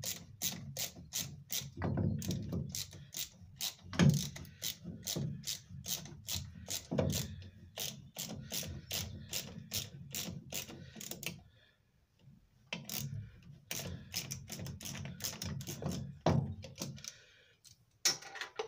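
Socket ratchet clicking rapidly, about four clicks a second, as it turns a 6 mm Allen key socket on a wobble extension to unscrew a cap head bolt from the lathe's gearbox casting. The clicking stops for about a second past the middle, then carries on and dies away near the end.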